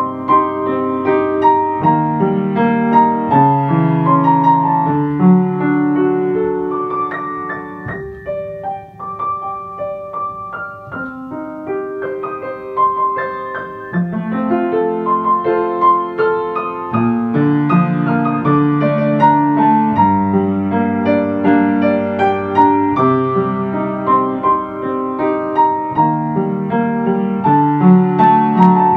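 Slow ambient piano music with sustained, overlapping notes and chords. It thins out and gets quieter about a quarter of the way in, then grows fuller again.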